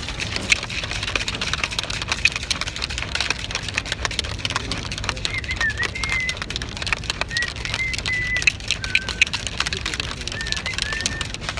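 Plastic shaker bottle shaken hard to mix pre-workout powder into water: fast, continuous rattling and sloshing. Several short high chirps or squeaks come through about halfway in and again near the end.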